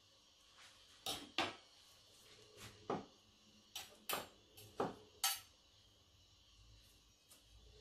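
Metal fork and knife clicking and tapping against a wooden cutting board while shredding cooked chicken breast: about eight sharp, irregular taps in the first five and a half seconds.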